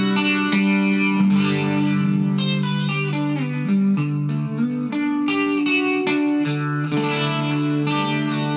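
Electric guitar played through a Vox Valvetronix AD50VT-XL amplifier on its 'Glass' setting, the classic chimey Vox tone. Chords are picked with the notes ringing into each other.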